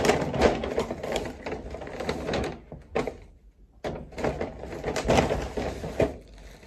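Cloth rustling and rubbing right against a phone's microphone as a pajama top is handled, with scattered knocks and clicks. There is a short pause about three and a half seconds in.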